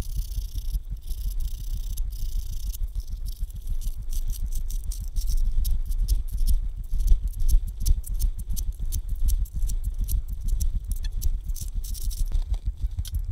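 Sandpaper rubbed by hand over a wooden screwdriver handle of apple wood: rapid, scratchy back-and-forth strokes, over a low rumble.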